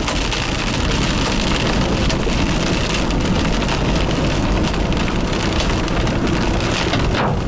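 Large hail and rain pelting down: a steady, dense patter of impacts with many sharp individual hits.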